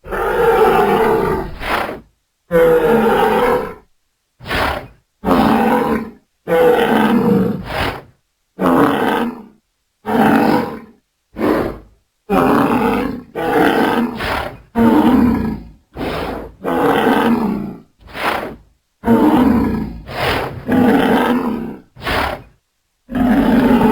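Recreated dinosaur roar sound effects: a run of about eighteen separate roars, each half a second to two seconds long, with short silences between them.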